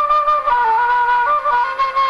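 End-blown flute played solo into a microphone: a breathy, ornamented melody that moves up and down in small quick steps.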